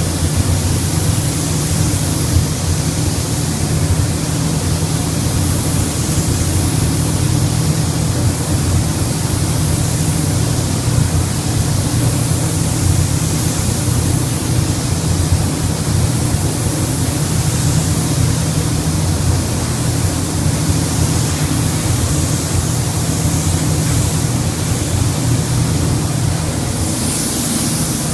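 Compressed-air gravity-feed spray gun hissing steadily as it sprays paint onto a car body, with a steady low rush of air underneath.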